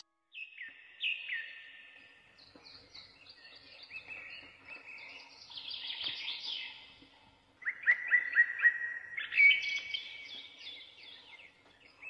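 Small songbirds chirping and singing in series of quick, high, downward-sweeping notes, with a brisk run of louder chirps about eight seconds in.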